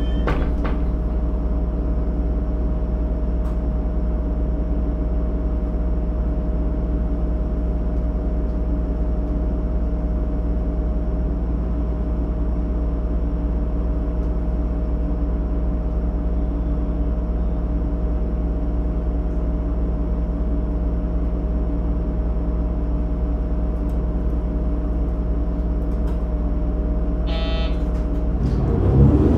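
GV-E400 series diesel-electric railcar standing still, its diesel engine and generator idling with a steady hum of several held tones. Near the end a brief high beep sounds, and just after it the engine starts to rise in speed as the train begins to power away.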